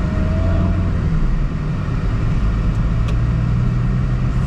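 Car engine and road noise heard from inside the cabin while driving slowly: a steady low hum with a light click about three seconds in.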